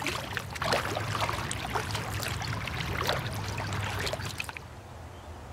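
Water splashing and trickling off a canoe paddle as it is drawn through the river and lifted, with many small splashes and drips. About four and a half seconds in, the water sound drops away suddenly.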